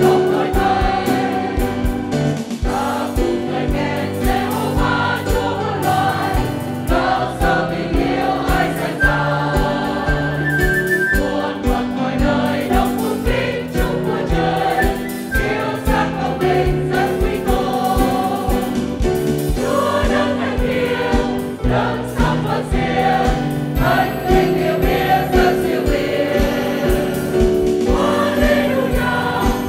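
Mixed church choir of men and women singing a Vietnamese hymn of praise in sustained chords.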